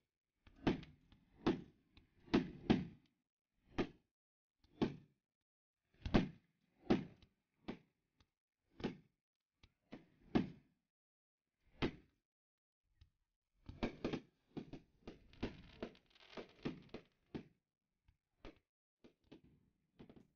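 Fireworks display: aerial shells bursting in a string of separate bangs, irregularly spaced about a second apart. About two-thirds of the way in, a quicker run of smaller crackling pops comes.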